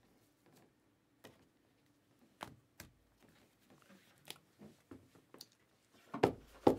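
Trading cards in plastic toploaders and sleeves being handled and gathered into a stack: scattered light clicks and rustles, with a louder bout of handling near the end.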